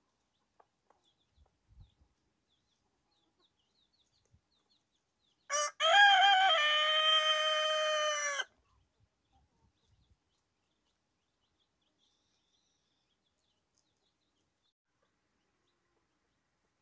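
A rooster crows once, starting about five and a half seconds in and lasting about three seconds: a short opening note, then a long, steady held note that cuts off. The rest is near silence with a few faint ticks.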